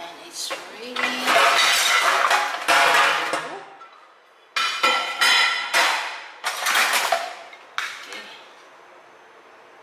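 Dishes clattering and clinking as they are handled, a run of sharp knocks each with a short ringing tail, the busiest stretches about a second in and again from about four and a half to seven seconds in.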